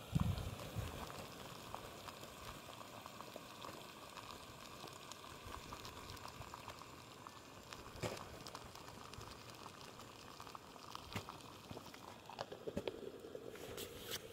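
Water at a rolling boil in a Bluu canister camp stove's pot, bubbling steadily. There is a low bump of handling as the lid comes off at the start and a few light clicks later on.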